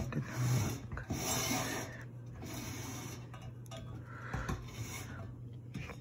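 Handling noise: a series of rubbing and scraping sounds, strongest in the first two seconds, over a steady low hum.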